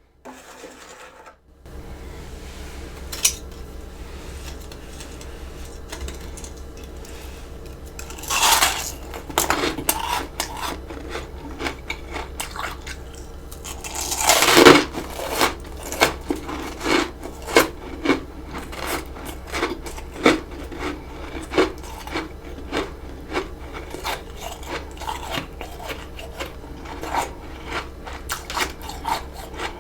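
Freezer frost being scooped and eaten: a spoon clinks and scrapes in the frost, with two longer scrapes, the second the loudest, then a quick run of crisp crunches several a second as the frost is bitten and chewed.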